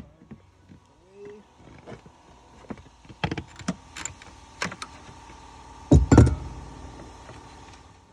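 Clicks and knocks of plastic and metal as a car taillight assembly is pried loose with a plastic trim tool, with a loud pop and thud about six seconds in.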